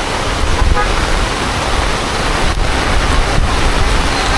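Heavy rain pouring down, a dense, steady hiss with a deep rumble underneath, mixed with traffic running on the wet road.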